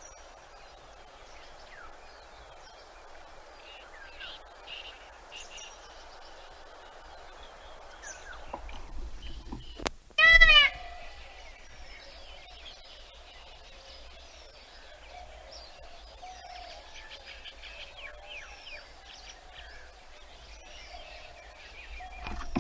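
Small birds chirping and calling in the background. About ten seconds in, an Indian peafowl (peacock) gives one short, loud, arching call.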